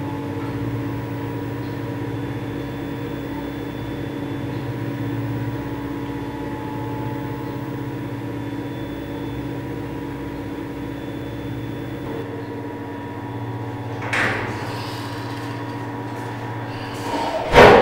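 A steady humming drone of several held tones, with a short knock about fourteen seconds in and a loud clatter near the end.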